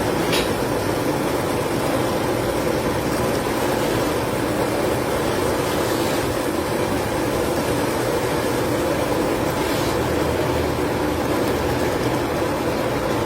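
Steady machine noise running at an even level, with a couple of faint ticks.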